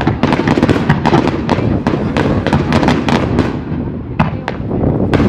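Fireworks display: rapid, overlapping bangs and crackles of aerial shells bursting over a steady low rumble. The barrage thins out about three and a half seconds in to a few separate bangs.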